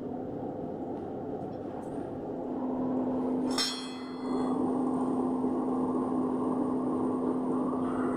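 A blacksmith's power hammer machine running steadily with a humming motor, getting louder about two and a half seconds in. About three and a half seconds in there is a single sharp clang with a metallic ring.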